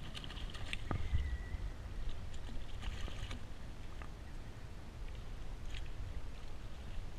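Water splashing and sloshing against a plastic kayak hull as a hooked jack crevalle is handled at the surface alongside, with several short, sharp splashes.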